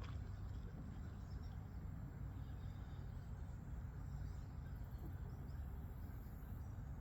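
Outdoor background at a pond: a steady low rumble with faint insect and bird chirps over it.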